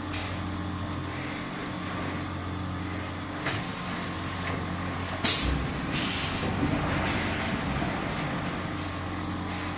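Quilt-rolling packing machine running as it rolls a comforter into film: a steady electric-motor hum over a noisy rush, with a sharp knock about three and a half seconds in and a louder one a little after five seconds.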